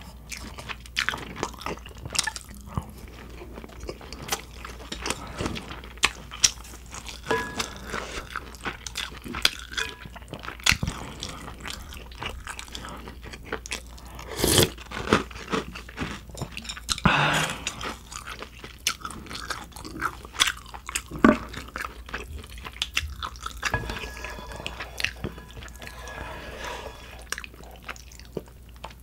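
Close-miked eating: chewing and biting of beef bulgogi and chewy cold noodles, with many small wet mouth clicks. A single louder bite comes about fourteen seconds in, and a longer noisy stretch of chewing about three seconds later.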